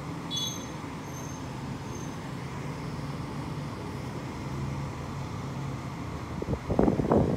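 Steady low background hum, like road traffic, with a few faint high beeps in the first two seconds. Loud rustling knocks come near the end.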